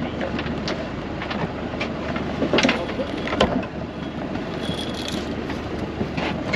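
Boat engine running steadily as a fishing net is hauled aboard, with irregular knocks and clatter from the net and gear, two louder knocks near the middle.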